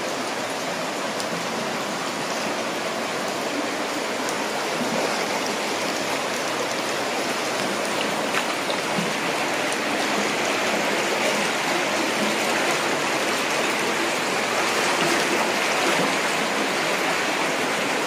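Water running steadily along the floor of a rock-cut tunnel, a continuous rushing that grows a little louder.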